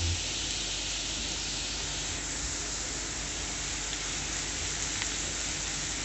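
Grated carrot and chopped onion sizzling steadily in oil in a nonstick frying pan, stirred with a wooden spatula in the second half.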